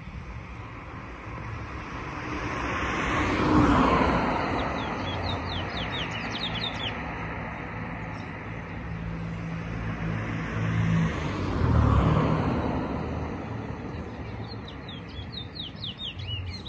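Caged towa-towas (chestnut-bellied seed finches) singing in quick runs of high chirping notes, mostly a few seconds in and again near the end. A passing vehicle swells twice to the loudest moments, at about four and twelve seconds in, with a low engine hum between.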